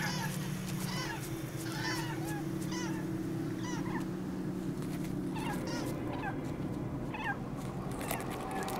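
A bird giving short, arching calls about once a second, pausing, then calling a few more times, over a low steady hum.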